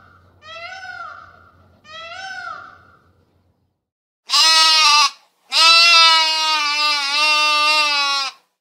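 A peafowl gives short rising-and-falling calls, one ending as the sound begins and two more about a second and a half apart. After a pause a sheep bleats: one short bleat, then a longer wavering bleat of about three seconds.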